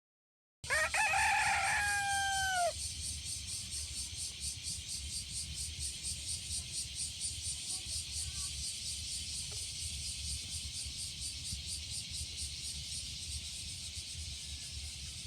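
A single long bird call, held for about two seconds and dropping in pitch at its end, followed by a steady high hiss with a fast, even flutter.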